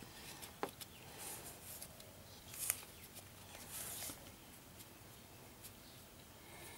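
Faint scattered clicks and brief rustles as a gloved hand undoes the nut on a car alternator's terminal and handles the wiring around it.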